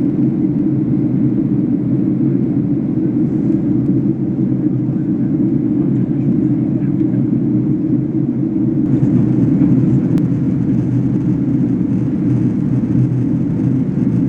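Steady low drone of airflow and engines heard inside a Boeing 767-300ER's passenger cabin on approach, with a faint higher hiss joining about nine seconds in.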